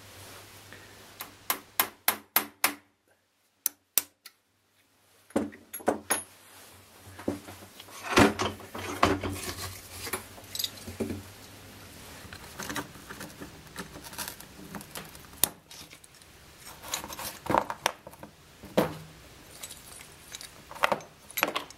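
A sharpened screwdriver used as a small chisel, clicking and tapping against a car door check held in a steel bench vise as the check is pried apart: scattered sharp metallic clicks and knocks, a quick run of several near the start, then a few-second gap.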